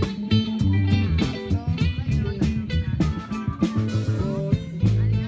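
Background music: guitar-led music with a bass line and a steady beat.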